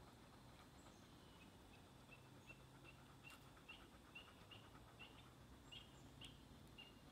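Faint bird chirping: a run of short, high chirps at about two to three a second, starting a second or so in, over near-silent background.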